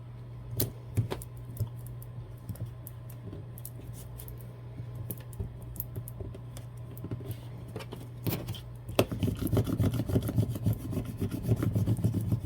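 Scattered light clicks and taps of handling tape and paper, then from about nine seconds in a fast run of rubbing strokes: a scraper burnishing transfer tape and vinyl. A steady low hum lies underneath.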